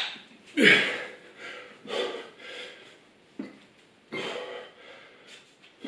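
A man's heavy, forceful breathing under exertion, a hard breath out about every second or so with each dumbbell rep, the first the loudest.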